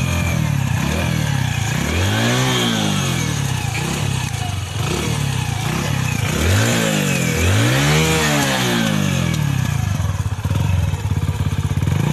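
Hero Passion XPro's 110 cc single-cylinder engine running on its stand and heard at the exhaust silencer, idling with three short throttle blips where the pitch climbs and falls back.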